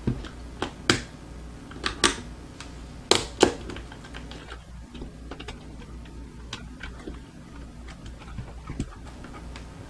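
Sharp plastic clicks and small ticks from a switch puller prying an Outemu switch out of a hot-swap mechanical keyboard, which takes a lot of force. The loudest clicks come about one, two and three seconds in, followed by fainter ticks.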